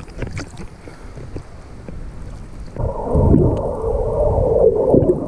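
Sea water lapping and splashing against a GoPro action camera in its waterproof housing at the surface, with a few sharp splashes. About three seconds in the camera goes under and the sound turns into a loud, muffled underwater rush with no high end.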